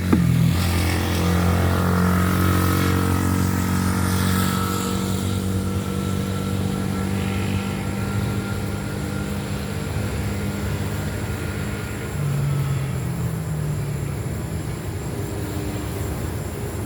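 Honeybees buzzing around an open hive, a steady hum of many wings, a little louder in the first few seconds.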